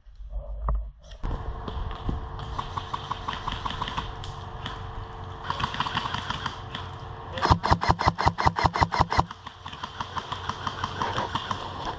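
Airsoft guns firing on full auto: a loud rapid burst of about a dozen shots a second a little past halfway, with quieter bursts of fire before and after it.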